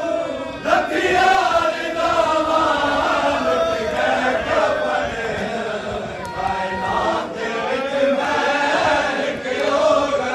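Many men's voices chanting a Saraiki noha together, a Shia lament for Imam Hussain, in a continuous melodic line that rises and falls.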